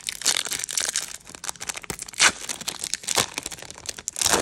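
Foil wrapper of a Japanese Pokémon booster pack crinkling and crackling in the hands as it is worked open, with sharper crackles about two, three and four seconds in.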